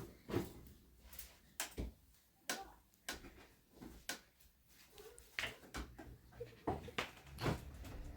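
A string of irregular knocks and clicks, like objects being handled and set down. A low steady hum comes in near the end.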